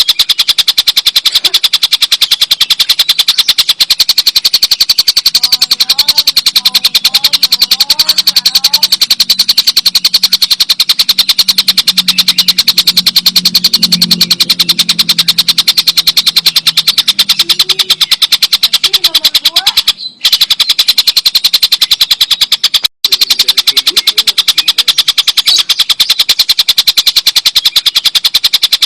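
Tengkek buto kingfisher giving its long rattling cackle (ngekek): a loud, rapid, even run of harsh notes that goes on unbroken apart from two brief breaks after about twenty seconds.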